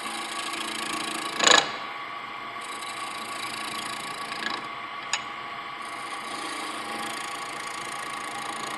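Wood lathe running while a bowl gouge cuts a wooden sphere: a steady motor hum under the rough scrape of the gouge on the spinning wood, with one brief louder scrape about a second and a half in and two light ticks around five seconds. The cut sounds smoother, with less wobble, because the sphere is close to round.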